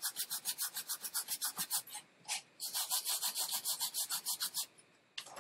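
A brush scrubbing alcohol over the corroded back side of a water-damaged iPhone 5S logic board to lift the corrosion. It makes fast, even back-and-forth strokes, about seven a second, pauses briefly about two seconds in, and stops shortly before the end. A short knock follows.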